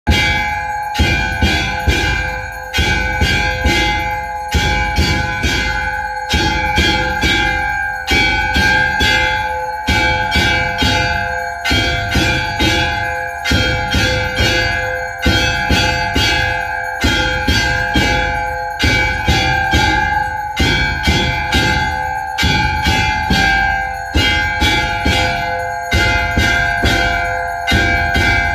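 Hindu temple bells rung continuously, struck about two or three times a second so that each clang rings on into the next and the tones blend into one steady, loud ringing.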